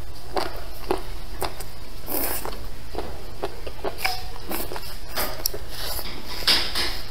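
Eating sounds: wet chewing and slurping of braised squid tentacles, an irregular string of short mouth smacks and clicks. A steady low hum runs underneath.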